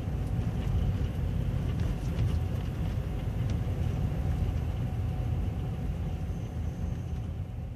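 Car driving over a dirt field, heard from inside the cabin: a steady low rumble of engine and tyres.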